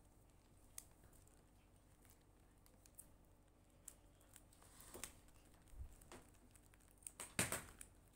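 Faint scattered taps and crinkles of paper cutouts being handled on a plastic-covered paper page, with a louder rustle near the end.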